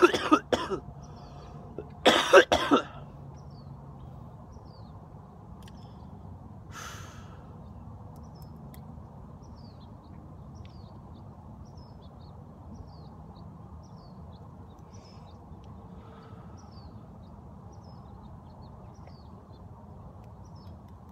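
A man coughing in two harsh bouts in the first three seconds, into his sleeve, while smoking a cigarette. After that, faint bird chirps over steady outdoor background noise.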